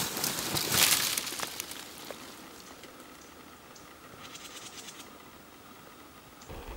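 Soft rustling and light crackling of brush and leaves. There is a louder rustle about a second in and a quick patter of small ticks around four seconds in.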